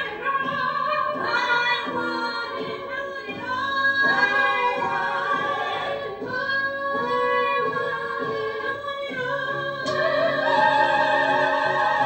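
Three women singing a musical-theatre song together in harmony, live on stage. A long held note with vibrato comes in near the end.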